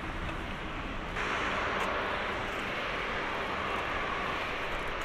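Airbus A350-900's Rolls-Royce Trent XWB jet engines running at low power, a steady jet rush that turns abruptly louder about a second in.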